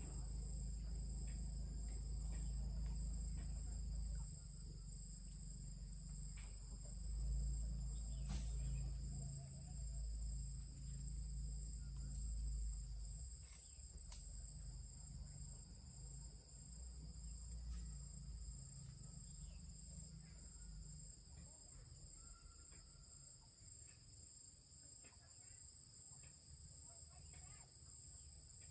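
Insects droning steadily at two high pitches throughout, over a low rumble that is stronger in the first half, with a few sharp clicks.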